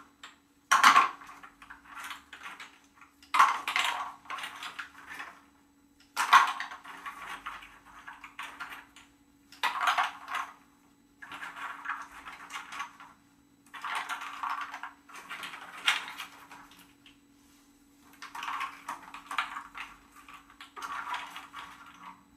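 Walnuts in their shells clattering against one another as handfuls are scooped from a wicker basket and dropped and pressed in among potted heather, in a dozen or so short rattling bursts.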